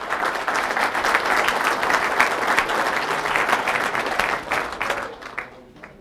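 Audience applauding. The clapping holds strong, then dies away over the last second or so.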